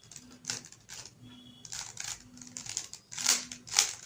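3x3 Rubik's Cube being turned fast by hand in a speed-solve: a quick, irregular run of plastic clicks and rasps as the layers snap round, getting busier and louder near the end.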